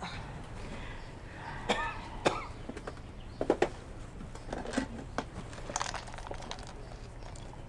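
Sharp knocks and clatters of things being moved about in an opened drawer during a search, a close pair of knocks about three and a half seconds in. Short throat sounds like coughing come between them, over a steady low hum of room tone.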